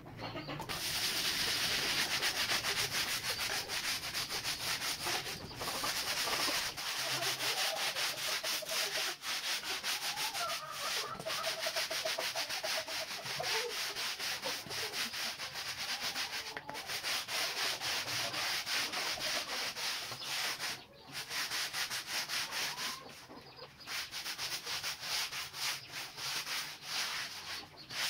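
Small wire-bristled hand brush scrubbing the pile of a synthetic carpet dusted with cleaning powder. The rapid back-and-forth strokes make a steady scratching, broken by a few brief pauses.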